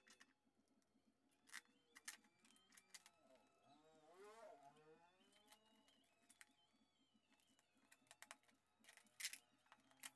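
Packing tape being picked at and peeled off a small cardboard parcel: faint scattered crackles and clicks, with a brief wavering pitched sound about four seconds in.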